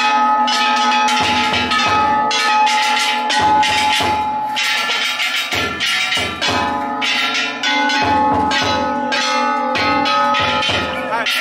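Large bronze hand gongs (kane) and a taiko drum on an Ishidori festival cart, struck over and over: sharp metallic clangs that ring on between strokes, over low drum thuds.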